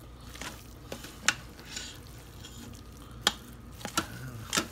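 A spoon stirring shredded chicken and rice in the stainless steel inner pot of an Instant Pot. There are a few sharp clicks where the spoon knocks against the pot.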